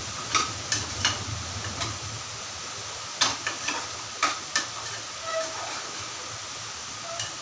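A metal ladle stirs thick mutton gravy in an open pressure cooker, scraping and knocking against the pot in a string of sharp clinks, over a steady hiss of sizzling on the gas flame.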